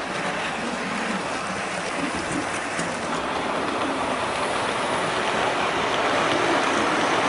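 Model trains running on an exhibition layout: a steady whirring rumble of small wheels on the track, growing a little louder toward the end as a train passes close.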